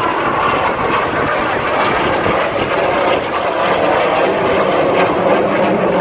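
Jet engine noise from BAE Hawk T1 display jets flying a low pass, loud and steady, its pitch sinking slowly as they go by.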